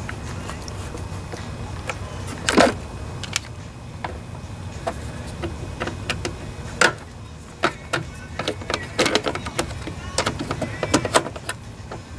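Hand tools working on a lawnmower's plastic engine cover and fittings: scattered sharp clicks and knocks of a screwdriver and ratchet wrench, loudest about two and a half seconds in, with a quicker run of clicks from about nine to eleven seconds. A steady low hum runs underneath.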